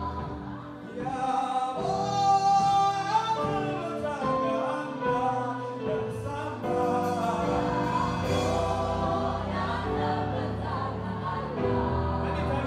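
Gospel choir singing, several voices holding and moving chords together in harmony.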